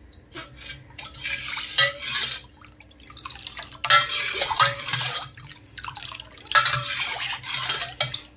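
Steel ladle stirring water full of soaked sabja seeds in a metal pot: splashing and swishing with small clinks of the ladle against the pot, in three spells of stirring.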